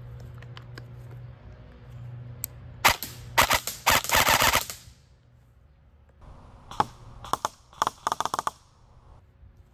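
Airsoft rifle shooting BBs at a wooden board: a couple of single shots, then a rapid burst lasting about a second and a half, and after a pause a few shorter strings of quick shots, with the BBs smacking into the wood.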